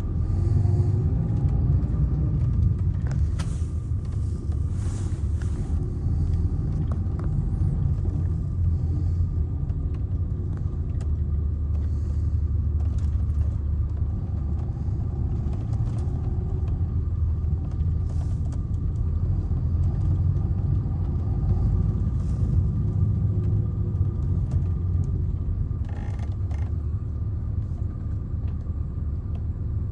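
Mercedes-Benz O-500R bus's rear-mounted diesel engine running steadily, a constant low rumble with a faint steady whine over it. Short rattles and clicks come and go, a cluster of them near the end.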